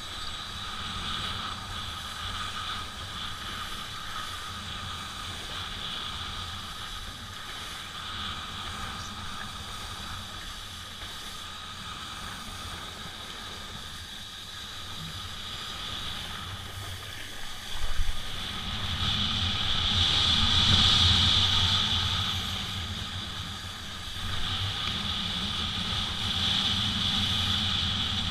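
Steady rush of wind and water, as on a kiteboard moving over the water. It swells louder about two-thirds of the way through, eases, then rises again.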